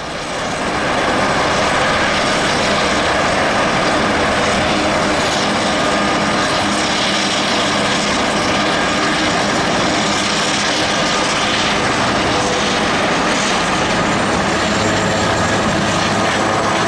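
Helicopter turbines and rotors running at close range: a Super Puma turning its rotors on the ground, with a second helicopter flying overhead. The sound swells in over the first second, then holds as a loud, steady din with a thin high whine.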